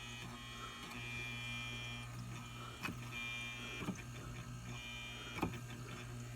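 Failing refrigerator evaporator fan motor running with a steady hum under a higher whine that comes and goes three times, with a few light clicks between: the worn motor struggles to keep spinning.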